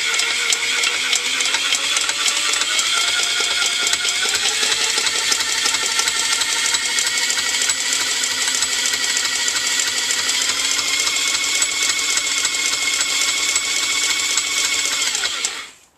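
Electric drill spinning a small single-cylinder four-stroke engine with its head off, the piston and valves clattering as it turns over. The drill's whine rises in pitch over the first few seconds, holds steady, then stops just before the end.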